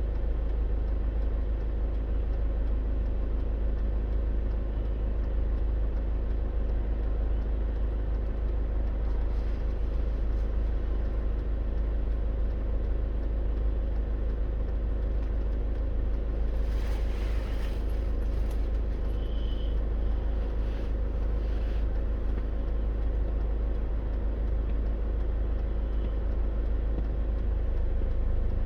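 Steady road and engine noise inside a moving car's cabin: a deep, constant rumble with a faint hum, and a brief hiss about two-thirds of the way through.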